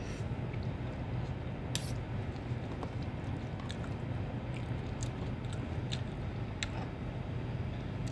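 A person eating fried noodles with a metal spoon and fork from a plastic tub: chewing, with scattered short clicks of the utensils, over a steady low background hum.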